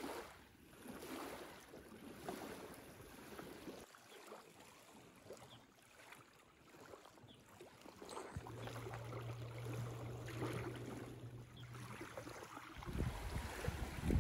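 Small lake waves lapping on a gravel shore, a soft steady wash. A low steady hum joins for a few seconds in the second half, and wind buffets the microphone near the end.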